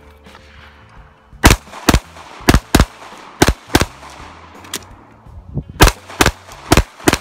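Open-division competition pistol firing rapid pairs of shots, about ten in all, starting about a second and a half in, each pair roughly a third of a second apart, with a couple of fainter pops between them.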